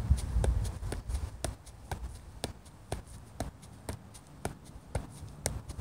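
A soccer ball being juggled, with steady, evenly spaced taps of the ball off the foot about two a second. A low rumble fades out within the first second.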